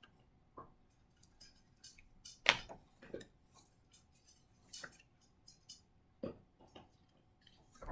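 A scatter of quiet, separate clicks and taps with faint paper rustle, from a hardcover picture book being handled as it is opened and its pages turned.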